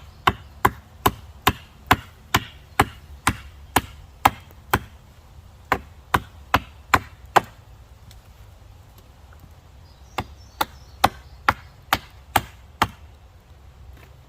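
Schrade axe chopping a wooden stake to a point, sharp blows about two a second in three runs, with pauses between them.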